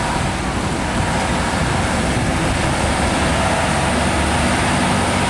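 Diesel engine of a heavy Nissan Diesel (UD) CDA 260 cargo truck running as it pulls through a bend, a steady low engine drone mixed with tyre and traffic noise.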